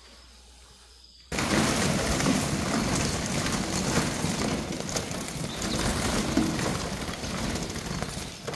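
Faint sound at first, then a loud, steady rushing noise, like wind or rain on the microphone, that starts abruptly about a second in and runs on with a fine crackle.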